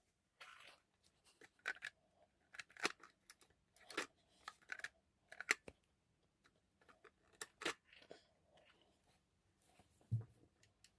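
Close-up handling noises: an irregular run of sharp clicks, snips and crinkling rustles with short pauses, and a dull thump near the end.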